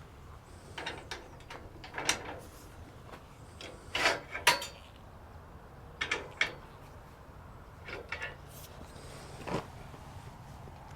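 Scattered short knocks, clunks and scrapes of wood and metal being handled, about a dozen in all, the loudest pair about four seconds in.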